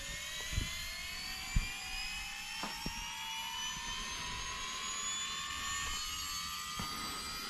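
Losi Promoto MX RC dirt bike's electric flywheel spinning up: a steady whine that rises smoothly in pitch, sounding like a jet. A few faint clicks sound in the first three seconds.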